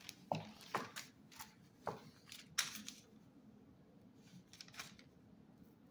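Paper rustling and a few light knocks and scrapes as an old book and a sheet of release paper are handled and moved on a cutting mat, in scattered strokes through the first five seconds.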